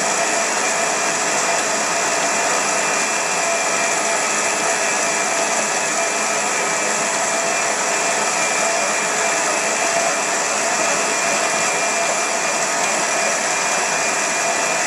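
Electric stand mixer running at a steady pitch, its motor whining as the beater works minced beef and cubes of pork back fat into a sausage mince.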